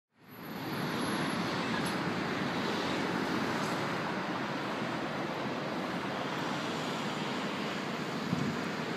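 Steady city street ambience of traffic noise, fading in over the first half-second.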